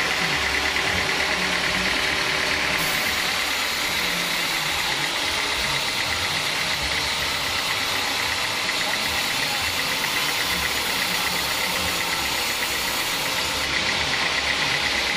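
Homemade sawmill band saw running steadily while it rips a teak plank, with the low, even drone of the machine's drive engine beneath the cutting noise.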